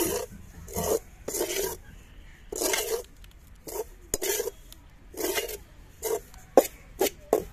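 Long metal ladle scraping and stirring dry ground bread crumbs around a metal kadai in a series of irregular rasping strokes, roughly one a second, with a few sharp clicks of the ladle against the pan. The crumbs are being dry-roasted to golden brown and stirred along the bottom so they don't stick.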